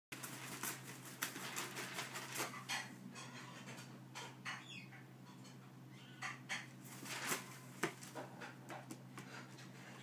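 Young African grey parrot moving on a wooden floor: irregular scratchy taps and rustles from its claws and wings, with a flap of the wings at the start, over a faint steady low hum.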